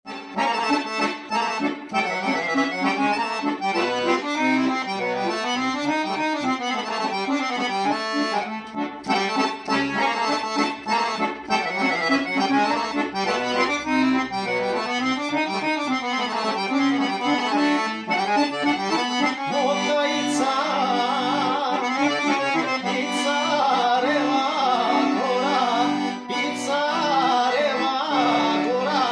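Piano accordion playing a traditional folk-song melody on the keyboard over left-hand bass and chord accompaniment.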